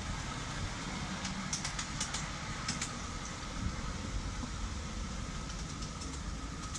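Miniature live-steam GWR Small Prairie locomotive running steadily along the track, with a run of light clicks about two seconds in.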